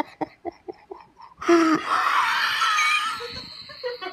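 A woman laughing hard. First come short, quick breathy pulses of laughter, then about one and a half seconds in a loud, high-pitched outburst that lasts over a second. It trails off into a few weaker gasps.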